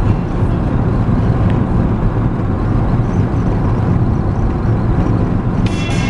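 Steady low rumble of road and engine noise heard inside a car cabin while driving on a motorway. Music starts near the end.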